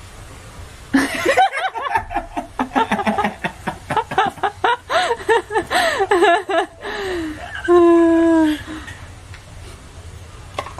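People laughing hard: a fast run of short ha-ha pulses for about six seconds, then one longer drawn-out laughing note.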